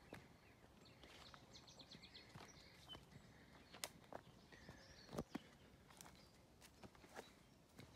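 Faint footsteps and rustling as someone walks through weeds over old wooden railway ties and gravel ballast, with scattered sharp clicks. A bird calls faintly, with a quick high trill about a second and a half in and a short whistle midway.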